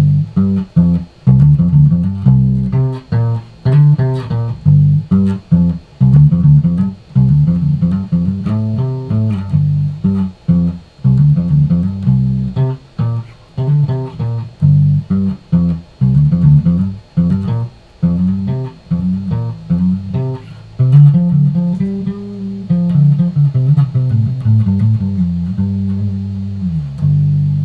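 Squier Affinity Precision Bass played fingerstyle with the tone knob at half: a steady run of plucked bass notes and short riffs.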